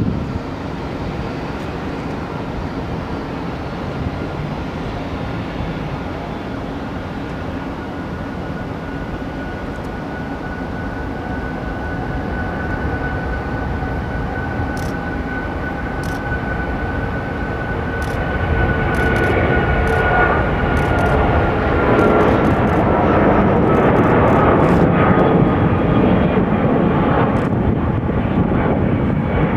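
Airplane engines running steadily, a whine over a dense rush that slowly drops in pitch past the middle as the whole sound grows louder.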